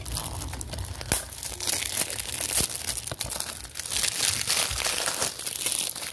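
Plastic shrink wrap being torn and peeled off a DVD case: continuous crinkling and crackling with sharp clicks, the sharpest about a second in.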